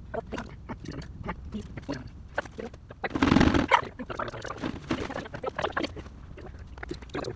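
Knocks, clicks and rustling as people move about and handle things on the cardboard floor of a fort while laying a rug, with a louder scuffing burst just after three seconds in.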